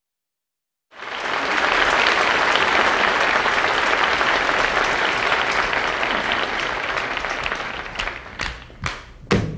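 Audience applause starting about a second in and fading after several seconds. Near the end, sharp handclaps about twice a second set the beat for the start of the song.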